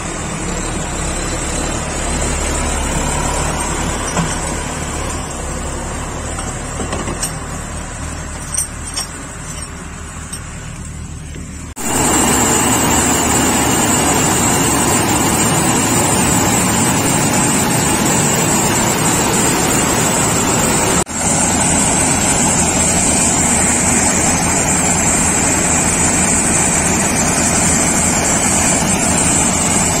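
A John Deere tractor's diesel engine runs steadily as it pulls a trolley through crop stubble. About twelve seconds in, this gives way abruptly to a Gulzar maize combine harvester running at work: louder, steady machine noise with a strong high hiss.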